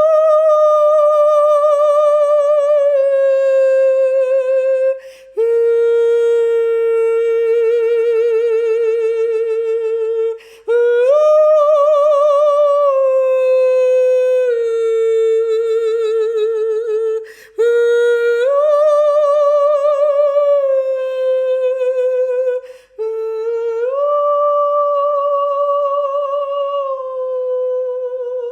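A solo voice holding wordless, sustained tones with vibrato, about five long notes, each opening with a short upward slide, then held and drifting slightly lower, with brief breaths between them.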